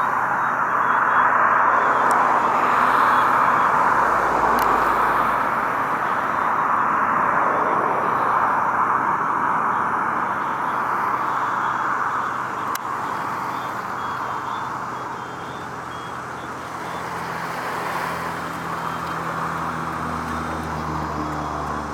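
Steady road traffic noise, a broad rushing hum that eases a little past the middle, with a low engine drone coming in near the end.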